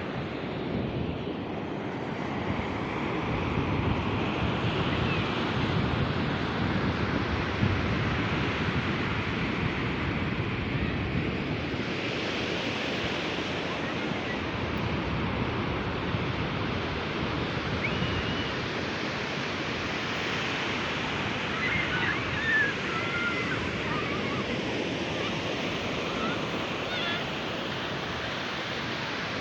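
Sea surf breaking and washing onto the beach in a continuous rush, swelling a little a few seconds in, with a few faint high cries in the distance later on.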